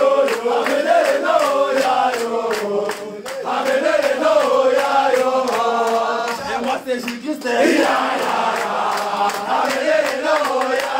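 A group of men chanting and singing a celebration song together, voices overlapping, over a quick, steady percussive beat.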